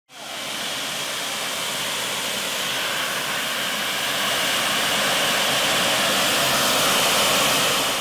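Homemade jet engine built around a Dyson Supersonic hair dryer's motor and compressor, running with its combustor lit. A steady rushing hiss of air and flame that slowly grows louder.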